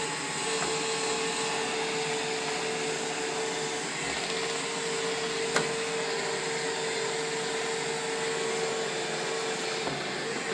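iRobot Roomba i7+ robot vacuum running: a steady whir with a steady hum, and a single sharp click about five and a half seconds in.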